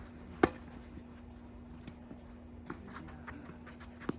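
A tennis ball struck once sharply, about half a second in, followed by a few faint knocks of ball and play on the court.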